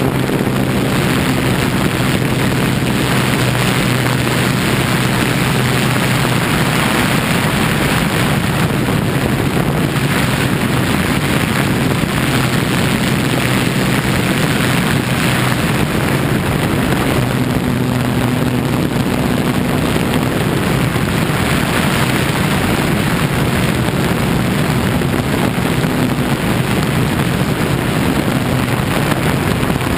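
MikroKopter quadcopter's electric motors and propellers running steadily in flight, heard from its own onboard GoPro: a steady low hum over a rush of air.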